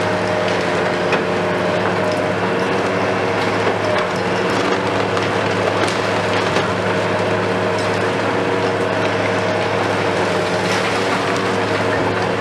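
Hitachi KMC 520 BTV long-reach demolition excavator's diesel engine running steadily, with scattered sharp cracks and crunching of concrete and masonry as its demolition attachment breaks into the building.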